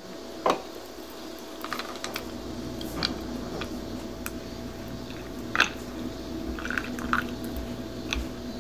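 Hot coffee poured in a thin stream from a Bialetti moka pot over ice cubes in a ceramic mug. Scattered sharp cracks and clicks come from the ice, over a steady low hum.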